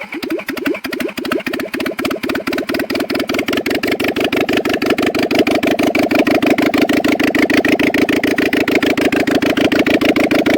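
Rebuilt Toyota 5A four-cylinder engine running at idle just after being started, its even firing pulses settling into a steady rhythm and growing a little louder over the first few seconds.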